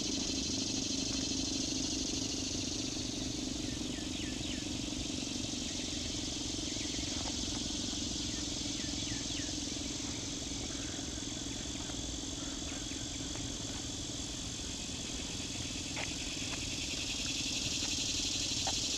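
Federal Signal 3T22 three-tone outdoor warning siren sounding its steady alert, a held chord that fades a little in the middle and swells again near the end.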